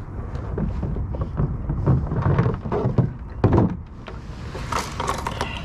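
Knocks, thunks and rustling of fishing gear being handled aboard a kayak, over a low steady rumble.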